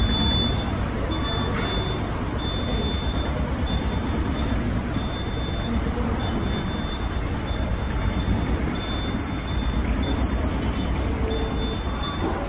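Hydraulic scissor lift lowering slowly: a steady low hum, with a high-pitched warning beep repeating about once a second.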